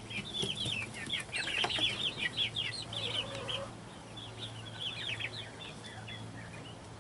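Young chickens peeping: a dense run of short high chirps that thins out after about three and a half seconds, with a few more about five seconds in. A low steady hum runs underneath.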